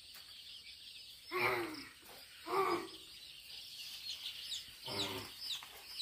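Six-day-old Sonali and FFG chicks peeping, many short high falling chirps that grow busier in the second half as the flock is chased around the brooder floor. Three short louder calls come about one and a half, two and a half and five seconds in.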